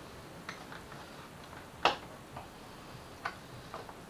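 Sharp plastic clicks and knocks from a Yamaha FZ6R's front cowling being pulled and worked loose by hand, with one louder click about two seconds in.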